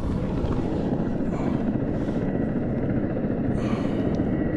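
Steady low rumble of wind buffeting the action camera's microphone.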